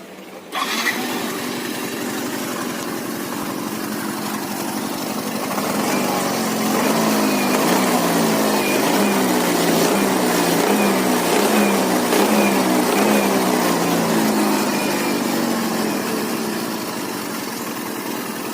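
Yamaha Mio 125 scooter's single-cylinder engine starting about half a second in, then running and being revved up and down, most strongly in the middle. As the revs rise from low RPM the CVT makes a rough growl with a crackling 'krek krek'. Dismantling traced this to deformed CVT rollers.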